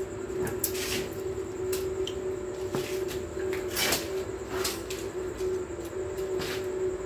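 A steady hum runs throughout, under irregular clanks and knocks of steel bars being handled, about half a dozen in all.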